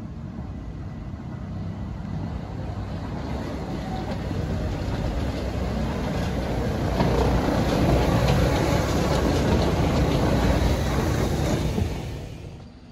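Train of the Bavarian Zugspitze rack railway running, its rumble growing steadily louder over about seven seconds and staying loud, then dropping away suddenly near the end.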